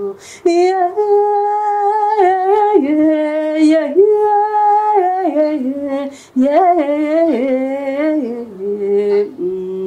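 A woman singing long held notes that step up and down in pitch, with a short break about six seconds in.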